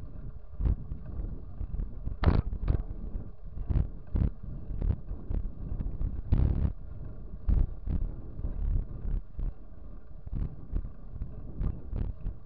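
Wind rushing over the microphone of a camera on a bicycle coasting fast downhill, with irregular knocks and rattles as the bike and camera mount jolt over the patched asphalt; the loudest jolts come about two and six seconds in.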